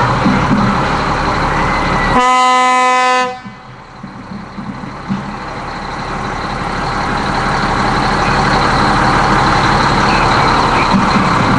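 A fire engine's horn sounds one steady-pitched blast lasting about a second, a couple of seconds in. Around it there is a broad rumble of the engine and the street, which dips sharply after the blast and then builds back up as the fire engine rolls by.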